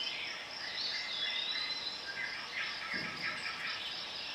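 Outdoor background of insects trilling steadily, high-pitched, with birds chirping over it in short calls and little rising and falling notes.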